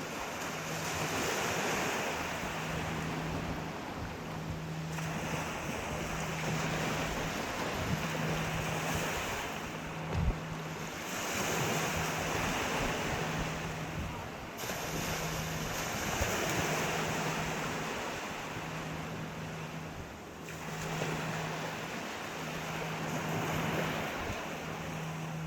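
Sea waves breaking and washing up the shore, surging and easing every few seconds, with wind buffeting the microphone. A faint low hum pulses on and off about once a second underneath, and there is a single sharp knock about ten seconds in.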